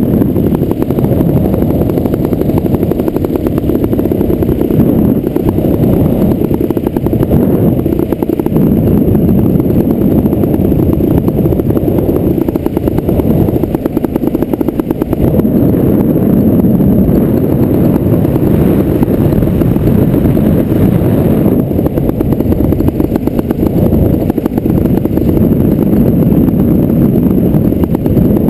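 Paramotor engine running steadily in flight, a loud, even drone with no change in pitch.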